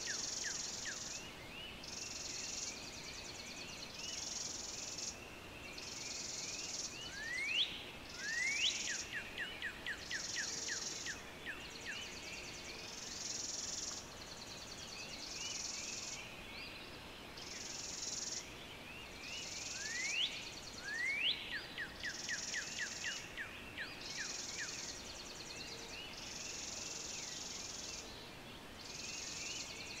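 Dawn chorus outdoors: an insect calls in steady rhythmic bursts about every two seconds, while birds chirp. Twice, about a quarter and two-thirds of the way through, a bird gives two quick rising whistles, each followed by a rapid run of short notes.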